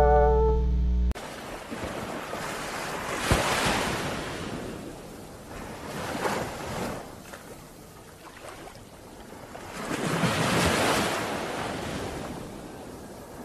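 A song's last held notes cut off about a second in. Then ocean surf washes onto a beach, with three waves breaking, each one a swell of rushing noise that rises and ebbs.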